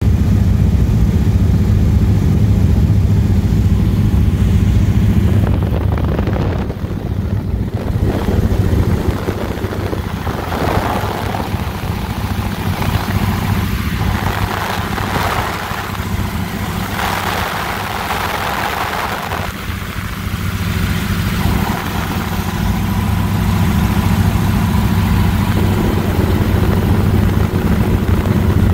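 De Havilland floatplane's engine heard from inside the cockpit, droning steadily through a landing on a river. A hissing rush comes and goes in the middle, and the engine grows louder again toward the end.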